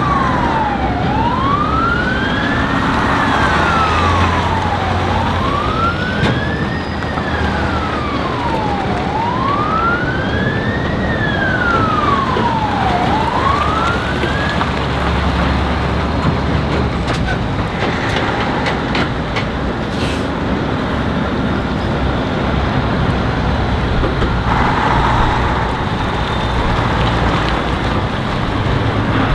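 A siren wails, sweeping slowly up and down about every four seconds, and cuts out about halfway through. Under it, Tatra 815 army trucks drive past with a steady diesel engine rumble.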